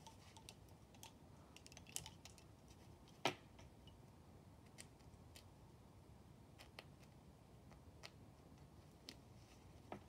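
Wooden lace bobbins clicking lightly against one another as pairs are crossed and twisted to work stitches, a dozen or so scattered faint clicks with the sharpest a little over three seconds in.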